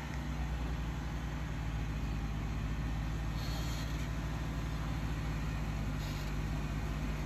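Jeep Wrangler's engine running at low, steady revs as it crawls slowly up a steep rock chute, a continuous low rumble. A brief hiss comes in about three and a half seconds in.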